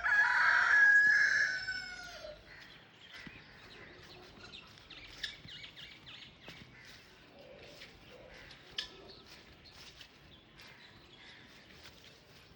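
A francolin (teetar, a partridge) gives one loud, harsh call in the first two seconds, then faint scattered chirps and clicks.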